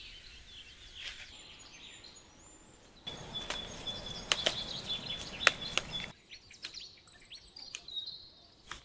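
Tea shoots snapped off the bush by hand: sharp clicks of breaking stems over leaf rustle, with birds chirping and whistling in the background.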